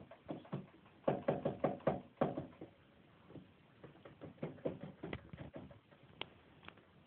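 Quick runs of soft knocks and taps from small pets scuffling together on a carpeted floor, about seven a second at first, then sparser and irregular, with one sharp click near the end.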